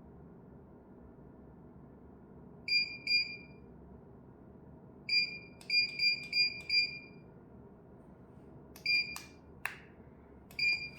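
Short, high-pitched key beeps from the REGENI RG-202F mobile dryer's control panel as its buttons are pressed to reset the target temperature: two beeps, a quick run of five, then two more near the end, with a couple of sharp clicks among the last ones.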